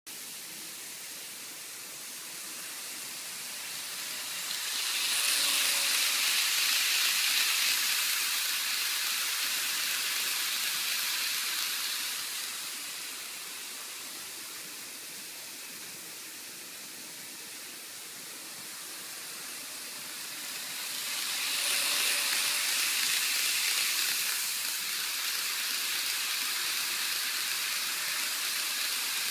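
N-gauge model Shinkansen trains running on plastic sectional track: a steady hiss of wheels and motors that swells louder twice, about five seconds in and again about twenty-one seconds in, as a train passes close by.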